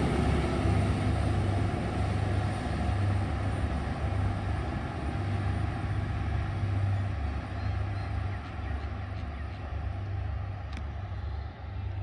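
Passenger train rolling past and moving away, its low rumble slowly dying down.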